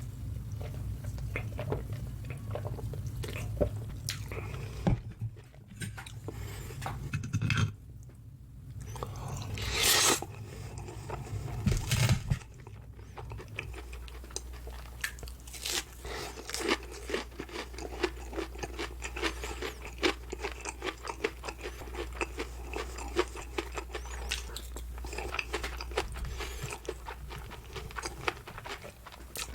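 Close-miked chewing with repeated crunchy bites into breaded, deep-fried pork cutlet. Wet mouth clicks continue throughout, with a couple of louder crunches about ten and twelve seconds in.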